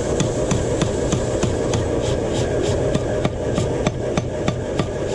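Hammer blows on hot steel while forging a knife blank, a steady run of sharp metallic strikes about four a second, over a constant low rumble.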